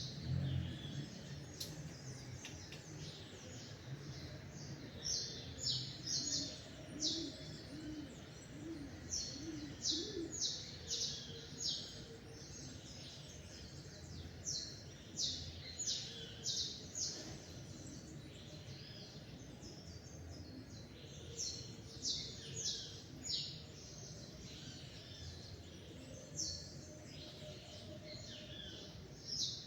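Songbirds chirping in quick clusters of three or four short, high notes, repeating every second or two, over a faint steady background hum of outdoor ambience.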